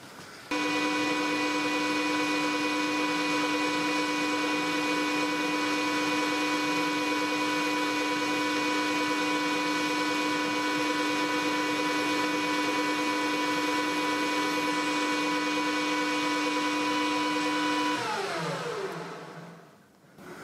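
Metal lathe starting abruptly and running at a steady speed with a steady whine while a centre drill is fed into the end of a steel bar. About 18 seconds in, the motor is switched off and the whine drops in pitch as the spindle coasts to a stop.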